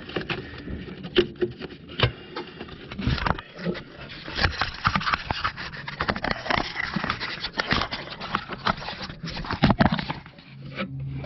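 Handling noise from a camera being moved and set in place: irregular rustling, scraping and sharp clicks and knocks close to the microphone.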